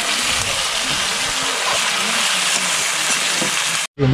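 Meat sizzling as it fries in a black iron wok over a wood fire, a steady hiss. It cuts off abruptly near the end.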